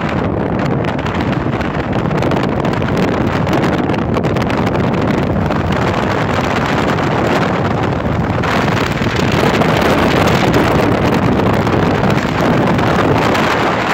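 Steady road and wind noise of a car driving along a highway, heard from inside the car, with wind rushing over the microphone. The hiss gets brighter about eight and a half seconds in.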